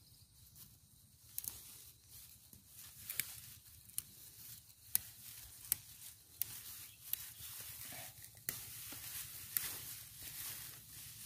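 Twigs and feathery compound leaves of a sengon jawa tree being broken off and stripped by hand. Leaves rustle throughout, and sharp twig snaps come every second or so. The rustling thickens after about eight seconds.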